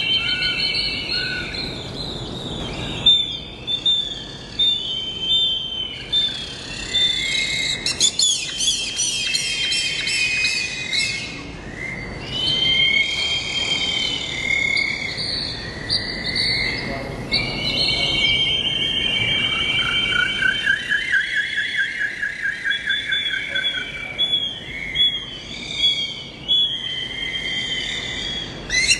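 Many birds singing at once: overlapping chirps, whistles and fast trills, with a long run of repeated notes about twenty seconds in.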